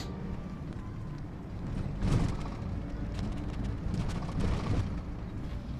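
Low rumble of a moving bus heard from inside the cabin, with a few knocks and rattles, the loudest about two seconds in.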